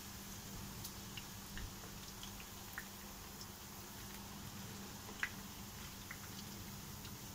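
Potato pancakes frying in sunflower oil and butter, a steady sizzle with scattered small pops and ticks, while a plastic slotted spatula turns them over in the pan. The sharpest tick comes about five seconds in.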